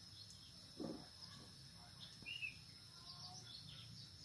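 Quiet outdoor background with a faint steady high whine. There is a short low sound about a second in and a brief faint chirp a little past two seconds.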